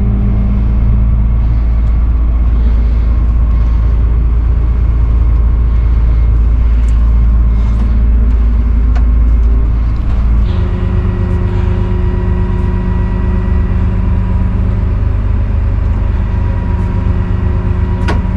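Tractor engine running steadily under load, with its note changing abruptly to a lower, rougher hum about ten seconds in. A sharp click near the end.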